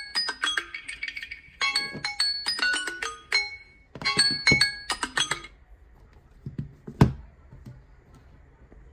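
Samsung Galaxy smartphone playing a melodic alert tone of short high notes in three phrases, which stops about five and a half seconds in. A single sharp knock, the loudest sound, follows about a second and a half later.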